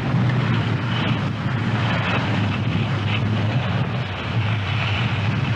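Wind buffeting a camcorder microphone while skiing downhill: a steady low rumble with a fainter hiss over it.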